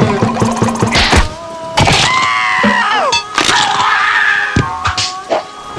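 Cartoon soundtrack: comic music punctuated by several sharp whacking and breaking hits, with a frog character's falling cry and a scream near the middle.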